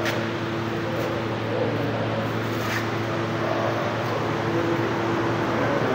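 1975 Ford 4000 tractor's engine idling steadily.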